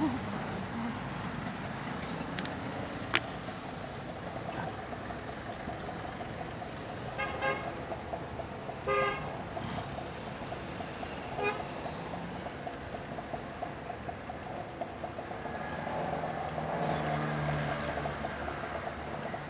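Road traffic: vehicle horns toot briefly a few times around the middle, over a steady traffic hum, and a passing vehicle swells louder in the last few seconds.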